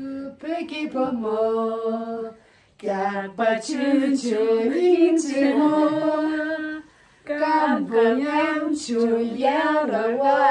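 A woman singing unaccompanied in long, held notes with a slight waver, in three phrases with two short breaths between them.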